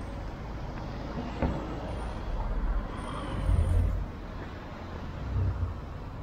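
Town street ambience with road traffic going by: a steady low rumble that swells twice as vehicles pass, and a single sharp knock about a second and a half in.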